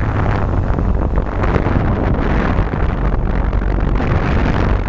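Steady rushing wind-like noise buffeting the microphone over a low steady hum.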